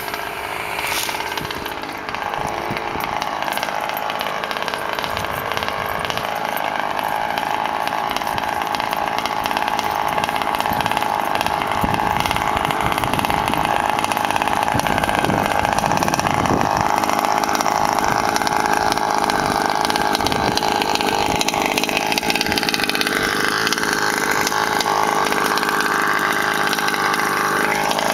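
Small two-stroke petrol engine of a 1/5-scale HPI Baja RC buggy running as the buggy is driven, its pitch rising and falling with the throttle. The engine is being broken in.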